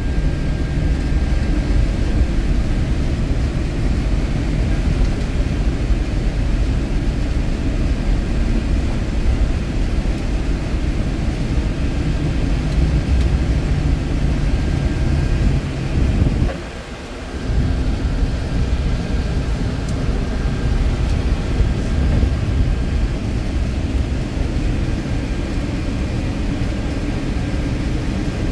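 Steady low rumble of a Boeing C-17 Globemaster III's four turbofan engines and airframe noise inside the cockpit on the ground, with a brief dip in the rumble for about a second a little past the middle.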